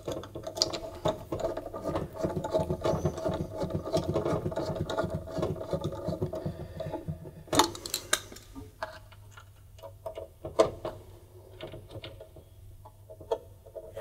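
Washing machine heating element being refitted into its housing under the tub: a fast, continuous run of small mechanical clicks for about seven seconds, then one sharper click and a few scattered clicks and knocks.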